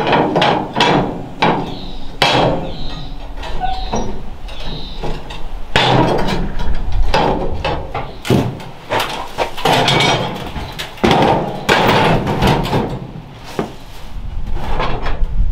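Heavy metal parts of an old Elmira wood cookstove clanking, knocking and scraping as they are handled and fitted together: an irregular run of knocks.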